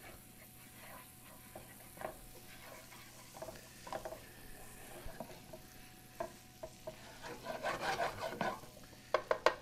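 Butter and brown sugar sizzling in a skillet as a spatula stirs and scrapes the pan, the sugar cooking into a caramel glaze. The scraping gets busier about eight seconds in, and a few sharp clicks come near the end.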